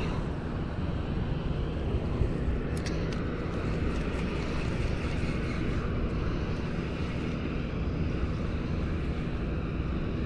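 A steady, low, engine-like drone of a running motor, with a few faint clicks about three seconds in.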